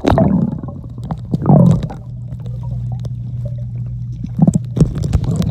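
Pool water sloshing and splashing close to the microphone, heard muffled and low, with swells at the start and about a second and a half in and a steady low hum through the middle.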